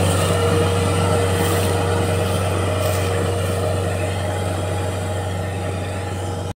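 Kubota DC-60 rice combine harvester's diesel engine running steadily as the machine drives away, a steady low hum growing slightly fainter. It cuts off suddenly near the end.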